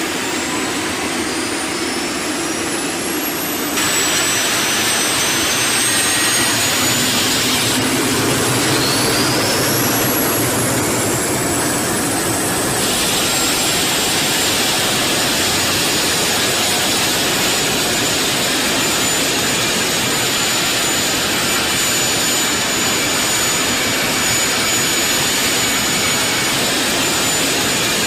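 T929 ATAK 2 prototype's turboshaft engines running on a ground engine run: a high turbine whine over a steady rushing engine noise. The whine rises in pitch in the first few seconds and again around nine seconds in, then holds steady.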